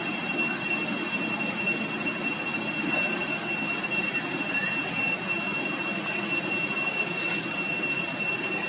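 Steady night insect chorus, a continuous high-pitched shrill drone that never breaks, over a constant low rushing background.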